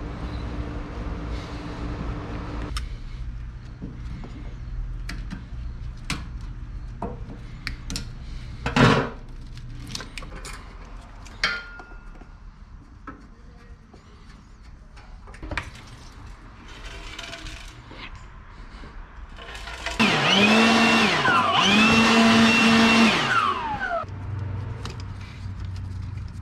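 Metal parts and hand tools clicking and knocking as a UTV's stock air intake is taken apart, with a loud knock about nine seconds in. Near the end, a small power tool's electric motor whines for about four seconds, dipping and rising twice before winding down.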